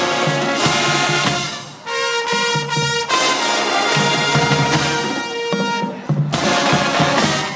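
Drum and bugle band playing: brass horns over marching drums, with a held brass chord about two seconds in. The music stops abruptly near the end.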